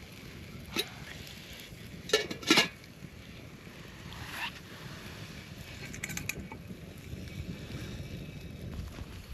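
Wind rumbling on the microphone with a few sharp knocks and clatters, the loudest a quick double knock about two and a half seconds in.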